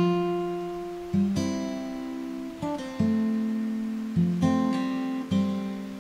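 Background music on acoustic guitar: plucked chords struck about once a second, each left ringing and fading.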